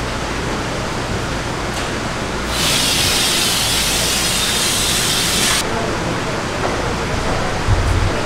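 Busy seafood-market background noise with indistinct voices, and a hiss of spraying water for about three seconds starting near the middle. A short dull thump near the end.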